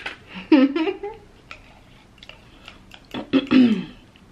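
A woman's two short wordless voiced sounds, one about half a second in and one about three seconds in, falling in pitch. Between them, faint light clicks of a plastic fork scraping a small plastic dressing cup.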